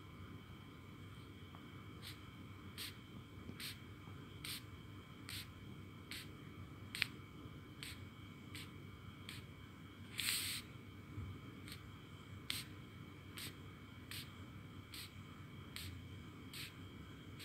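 A pen tip tapping dots onto a sheet of paper, one short soft tick roughly every second, with a longer rustle of the paper about ten seconds in. A faint steady high hum runs underneath.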